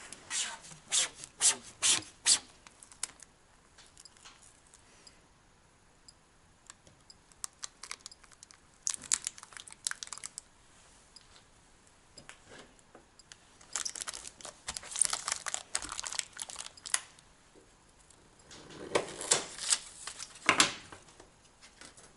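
Yellow insulating tape being pulled off its roll and pressed down over the nickel strips of an 18650 cell pack, in several separate spells of tearing and crinkling.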